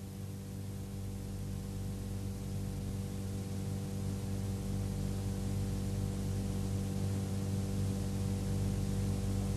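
Steady electrical mains hum with a ladder of overtones over a background hiss; no distinct click or scrape is heard.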